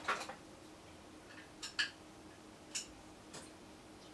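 A handful of light, irregular metallic clicks and taps from hand tools: Torx drivers being handled and tried for size in small screw heads.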